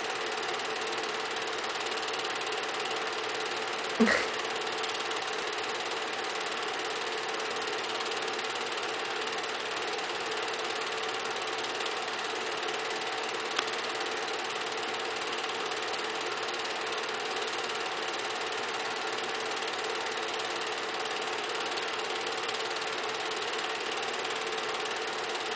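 Film projector running: a steady mechanical whir with a constant hum, with one sharp click about four seconds in and a small tick near the middle.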